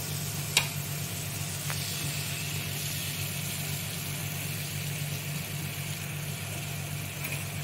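Spiced milk gravy sizzling in a nonstick frying pan as a wooden spatula stirs it, with a sharp knock of the spatula against the pan about half a second in. A steady low hum runs underneath.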